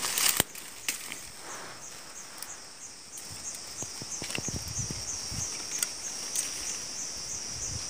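Insect chirping in a steady high-pitched pulse, several pulses a second, with scattered snaps and rustles of twigs and leaves being handled.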